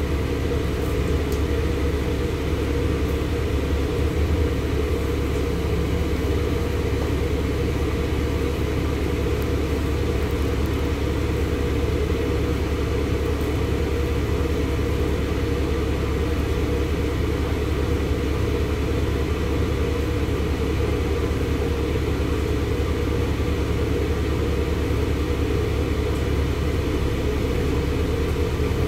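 LiAZ-6213.65 articulated city bus's diesel engine idling while the bus stands still, heard from inside the passenger cabin as a steady low rumble.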